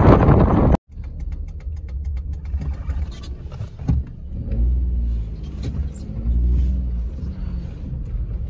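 Wind buffeting the microphone for under a second, then a cut to the low, steady rumble of a small Maruti Alto car running, heard from inside the cabin; the rumble swells twice near the middle, with a few faint clicks.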